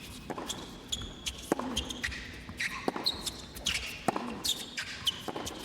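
Tennis rally: rackets striking the ball roughly every second and a half, with shoes squeaking sharply on the court between shots.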